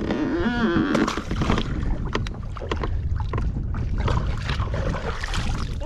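Wind rumbling on the microphone over water around a small fishing boat, with scattered knocks and clicks of handling. A short voice sound comes in the first second.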